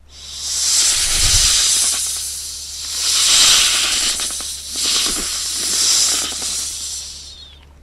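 Snake hissing a threat: about four long hisses that swell and ease, one running into the next, fading away near the end.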